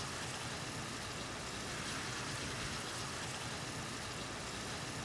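Venison pieces sizzling steadily in a molasses and lime-juice glaze in a hot skillet, the glaze reducing and caramelizing.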